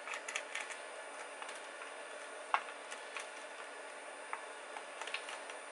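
Faint scattered ticks and small clicks of desoldering work, a 200-watt chisel-tip soldering iron worked over the solder joints of an inverter circuit board, over a steady low hum. One sharper click comes about two and a half seconds in.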